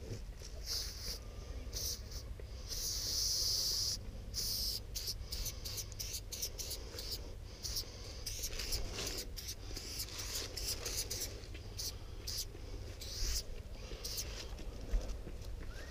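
Aerosol can of copper chrome graffiti spray paint hissing in short bursts as it is sprayed onto a wall, the longest burst lasting about a second and a half a few seconds in. Short clicks and taps are scattered between the bursts.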